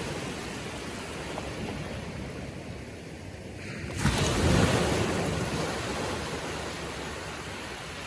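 Small waves breaking and washing up on a sandy beach on a calm sea. About halfway through, one wave breaks with a sudden rush, the loudest moment, and its wash then slowly dies away.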